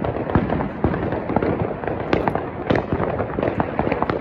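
Fireworks and firecrackers going off all around, a dense run of overlapping bangs and crackles, several a second, some sharper and louder than others.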